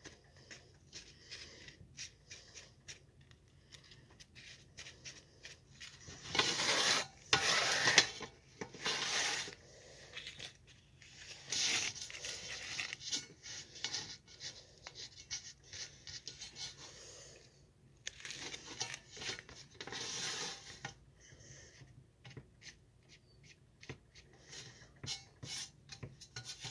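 Hands handling rolling papers and a hand rolling machine over a metal tray: rustling and rubbing with scattered small clicks and taps, and louder stretches of rustling about six to nine seconds in, around twelve seconds and around nineteen to twenty seconds.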